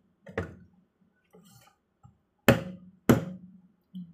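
Three sharp knocks, one about half a second in and two louder ones about half a second apart near the end: hard green Chinese olives being struck and pounded to crack them before steaming.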